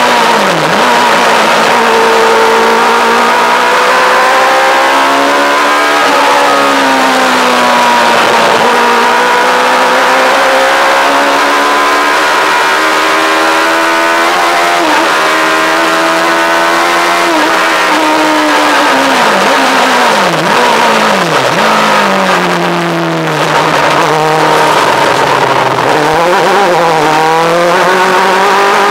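Yamaha R1 motorcycle inline-four engine running hard in a lightweight open sports car. Its pitch climbs steadily through each gear and drops back at the shifts, then dips and jumps several times in quick succession about two-thirds of the way through as it changes down. A steady rush of wind and road noise runs beneath it.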